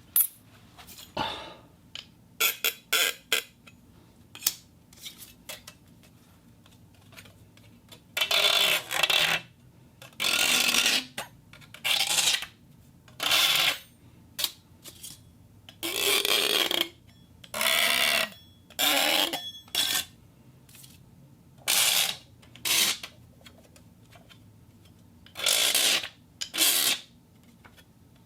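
Gears and springs worked by hand, making a series of mechanical sound effects. First come quick sharp clicks, then about a dozen short rattling, scraping bursts of half a second to a second each, with pauses between them.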